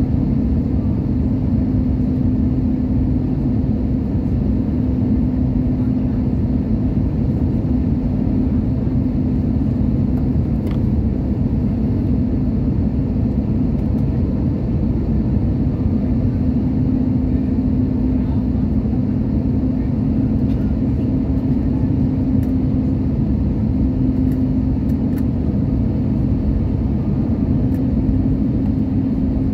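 Steady jet airliner cabin noise: a dense drone of engines and rushing air, with a steady low hum over it.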